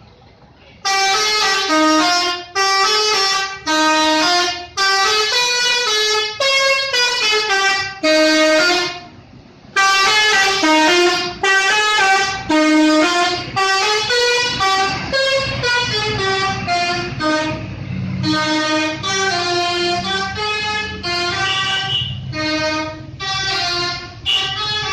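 Bus 'telolet' musical air horn playing a quick melody of short stepping notes, starting about a second in, with a brief pause near nine seconds. From about the middle a low rumble runs underneath the tune.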